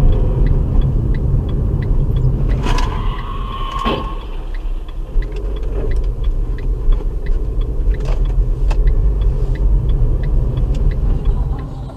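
Car on the road, with a steady low rumble of road and engine noise, a regular light ticking about three times a second and a few sharp knocks. About three seconds in, a short steady tone sounds for about a second.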